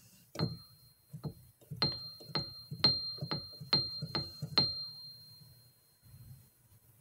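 A small object that rings at one high pitch, tapped about nine times in four seconds, the taps coming roughly two a second. The ring fades out about a second after the last tap.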